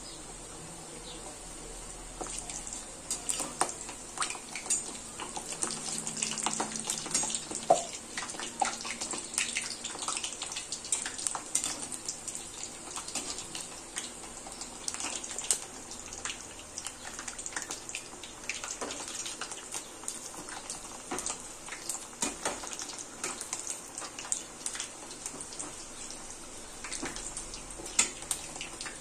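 Lauki (bottle gourd) kofte deep-frying in hot oil in a kadai: a steady sizzle full of small crackling pops, with a few sharper clicks.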